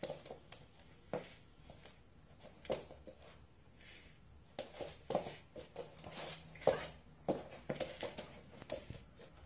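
A corgi puppy playing with a hollow plastic treat ball on a wooden floor: irregular knocks, taps and clicks from the ball and the puppy's paws, coming thicker in the second half.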